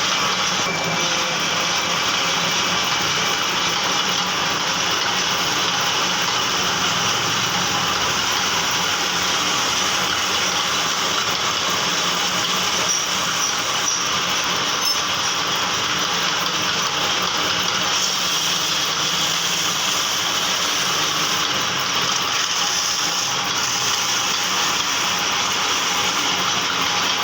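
Metal lathe running with a steady, even mechanical noise that does not change in level.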